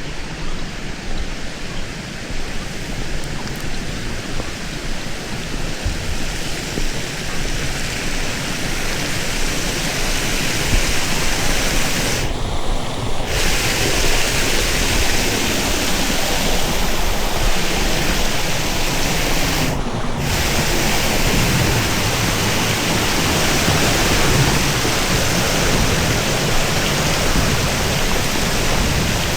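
Rushing water: a steady, loud noise that grows a little louder from about ten seconds in.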